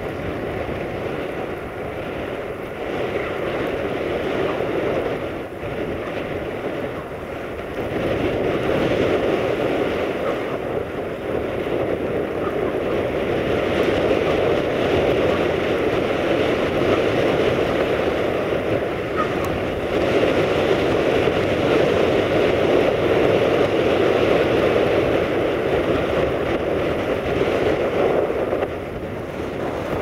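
Blizzard wind buffeting the microphone: a steady rushing noise that swells in gusts, growing louder about eight seconds in.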